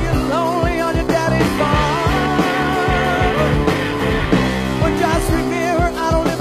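Hard rock music: an electric guitar plays a wavering, sliding lead line over bass and drums.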